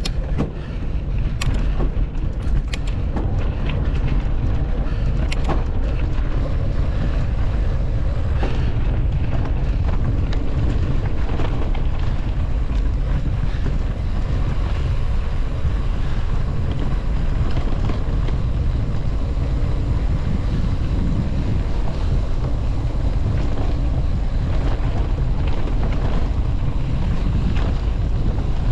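Heavy wind buffeting a GoPro Hero 11 Black's microphone during mountain biking: a steady low rumble that builds over the first few seconds. A few sharp knocks come in the first eight seconds or so.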